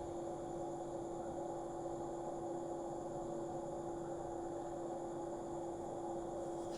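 A steady, unchanging hum on one pitch with a faint hiss behind it; no bird calls.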